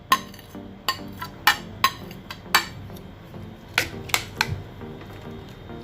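A spoon clinking and knocking against a cooking pot, about seven sharp clinks at irregular intervals, while chopped vegetables are added to the soup.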